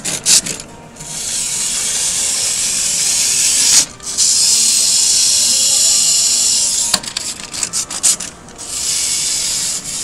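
Small plastic toy garbage truck's geared drive whirring in three spells, each a steady high whir lasting about three seconds, with light plastic clicks and knocks between them.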